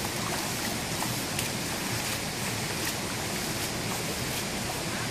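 Steady rush of water flowing in a shallow, rocky stream, with a few faint splashes.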